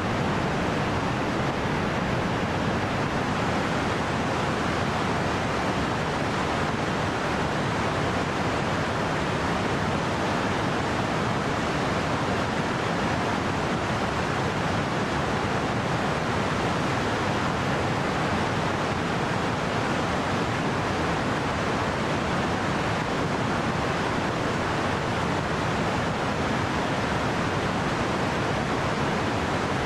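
A fast mountain river rushing over rapids: a steady, unbroken rush of white water.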